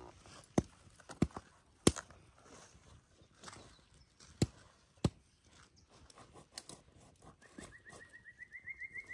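A few sharp knocks or cracks, spaced irregularly over the first five seconds. Near the end, a bird gives a rapid trill of short notes that rises slowly in pitch.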